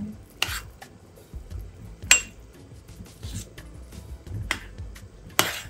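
Metal spoon knocking and scraping against the side of a stainless steel pot while stirring bubbling sugar syrup, about five separate clinks spread out over a few seconds.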